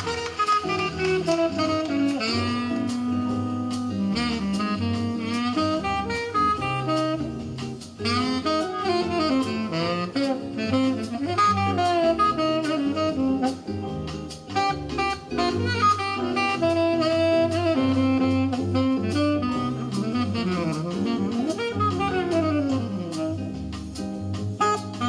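Instrumental jazz with a saxophone playing the lead melody over bass and drums, played back through homemade coaxial loudspeakers with a stiff-suspension woofer and tweeter.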